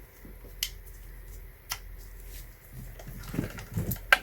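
Small plastic clicks and handling rustle as a charging cable's plug is pushed into a power strip's port, with the sharpest click just before the end.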